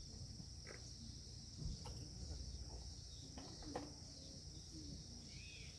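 Steady high-pitched chirring of insects over a low rumble, with a few soft knocks, the clearest about two and four seconds in.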